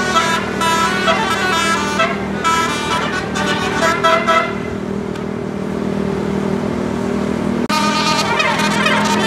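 Bus 'telolet' multi-tone musical horn playing a rapid melody of short notes for about four and a half seconds, over the steady drone of the bus engine. A fuller set of horn tones starts again near the end.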